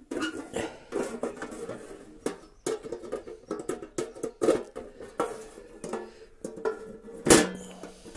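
Metal clattering and scraping as the sheet-metal lid of a portable smoker box is worked loose and slid off with a lifting handle. The loudest clank comes about seven seconds in and rings briefly.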